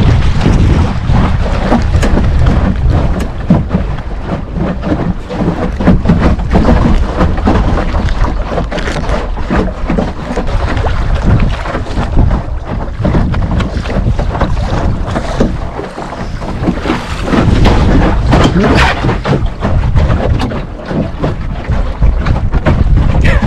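Wind noise on the microphone of a Puddle Duck Racer sailing dinghy under way, over water splashing and slapping against its hull, rising and falling with the gusts and easing briefly twice in the second half.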